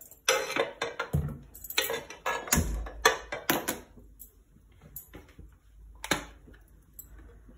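A string of sharp clicks and knocks, densest in the first few seconds and thinning out later, with a couple of dull low thumps: hard objects being handled and set down around a gas stove.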